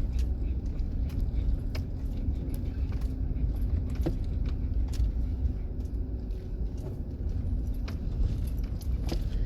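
Camper van driving slowly over a dirt road, heard from inside the cabin: a steady low rumble with scattered clicks and rattles.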